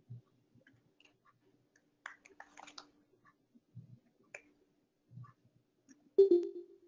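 Faint scattered clicks and soft low knocks of a computer and its mouse being handled while the slide is changed. About six seconds in comes a short, loud clunk with a brief hum.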